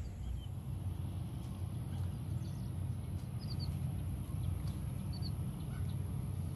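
Outdoor riverside ambience: a steady low rumble with a few short, faint high bird chirps scattered a second or two apart.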